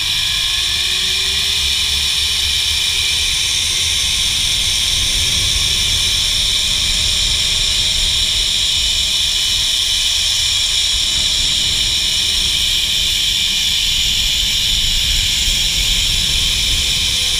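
Zipline trolley pulleys running along twin steel cables: a loud, steady whirring hiss with a faint whine that rises in pitch over the first several seconds, levels off, and dips slightly near the end. Wind rumbles on the microphone underneath.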